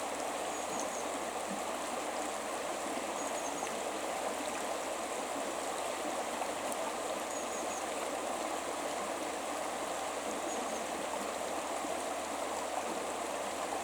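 River water flowing steadily over its bed, an even rushing sound.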